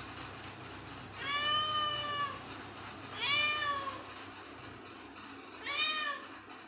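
A cat meowing three times, in separate calls, the first the longest.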